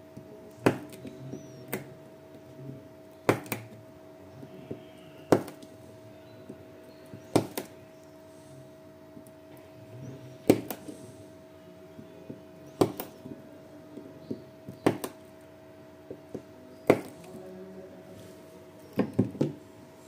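Battery spot welder firing through two handheld pens: a sharp snap about every two seconds as each weld joins the metal connecting strip to the cylindrical lithium-ion cells' terminals, with a quick run of snaps near the end. A steady low hum runs underneath.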